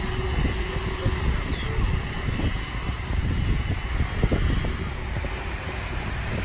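Jet engines of a taxiing Boeing 747 freighter running at low power: a steady whine with a few thin high tones over an uneven low rumble.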